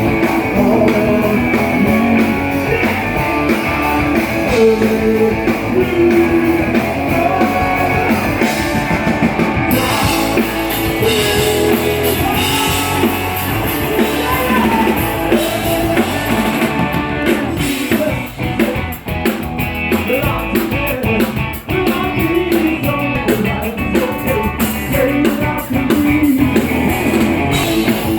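A live rock band playing: drum kit and guitar with a singer, loud and continuous.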